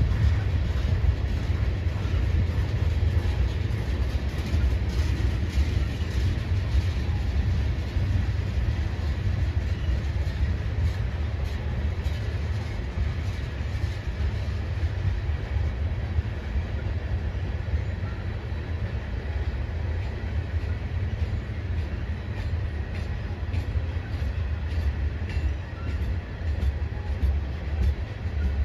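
Freight cars of a long Union Pacific train rolling past close by: a steady low rumble of wheels on rail, with regular clickety-clack of wheels over rail joints that grows more distinct in the second half.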